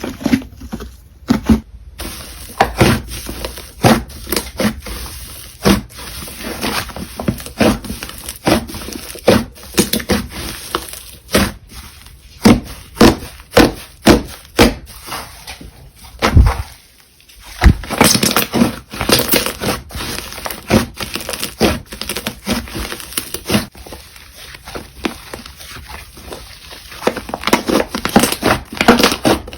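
Slime being squished, poked and stretched by hand: close, irregular wet pops, clicks and crackles, one to several a second, with a brief pause about halfway through.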